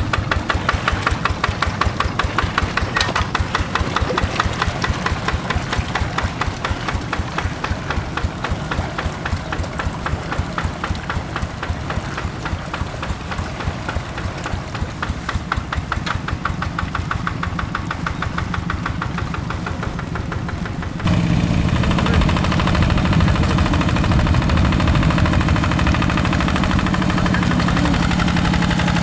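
Yanmar single-cylinder diesel engine of a Quick G1000 hand tractor running with a rapid, even knock of firing strokes. About 21 seconds in the sound changes suddenly to a louder, deeper, steadier engine note.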